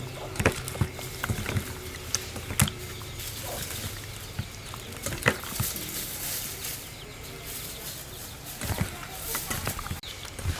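Kitchen handling noise: irregular taps, knocks and clicks of utensils and food being worked, with a faint hiss that grows stronger for a few seconds past the middle.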